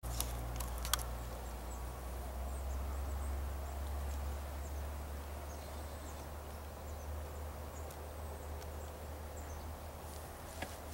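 Quiet woodland ambience: a steady low rumble under faint, scattered high chirps, with two sharp clicks in the first second.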